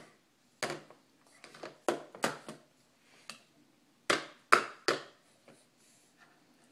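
Sharp plastic clacks as a toddler knocks her spoon, plastic bowl and sippy cup against a high-chair tray: about eight separate knocks, the loudest three in quick succession just past the middle.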